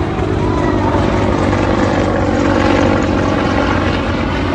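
Jet engines of a US military C-17 transport climbing away after takeoff: a steady, loud jet noise that swells a little around the middle.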